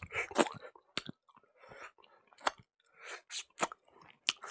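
Close-up mouth sounds of a man chewing a handful of rice with dal and potato fry. Irregular wet clicks and smacks come every half second or so.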